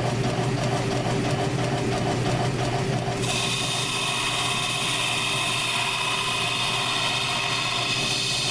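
South Bend lathe running at high speed with a steady hum; about three seconds in, the cutting tool bites into the spinning scooter wheel and a steady high-pitched cutting whine comes in and holds.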